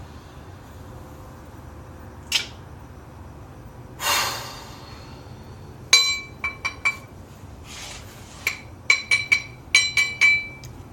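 A run of sharp clinks, each with a short high ringing tone, coming in irregular clusters over the last five seconds. Earlier there is a single click and a short hiss.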